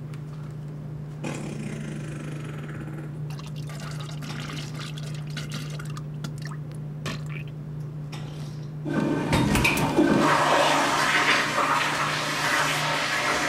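Quiet restroom with a steady low hum and a few small clicks, then about nine seconds in a toilet flushes: a loud rush of water that keeps going.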